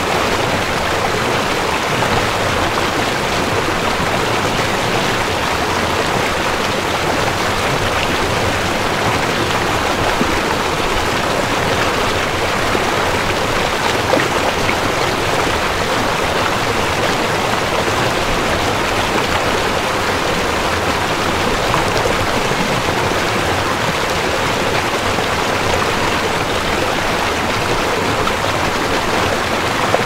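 Ocean surf: a steady rush of breaking water, even in level throughout, with no rise and fall of single waves.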